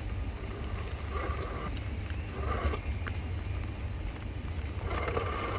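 RC rock crawler's electric motor and gear drivetrain whining in three short bursts as the truck creeps over the planks, over a steady low rumble.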